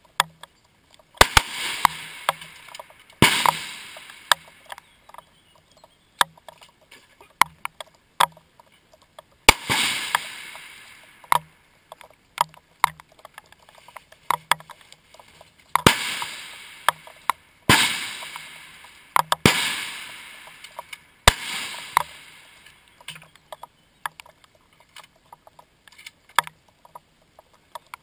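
Rifle shots on a shooting line: about eight loud cracks at irregular intervals, each trailing off in a rolling echo, with light clicks and knocks between them.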